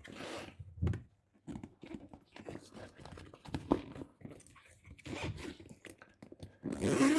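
A fabric-covered foam corner pad being pulled round and fitted onto a bed frame's steel corner: irregular rustling, scraping and small knocks of fabric and foam being handled.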